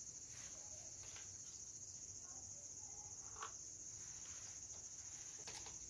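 Faint, steady high-pitched chirring of crickets, with a few soft ticks from spice containers being handled.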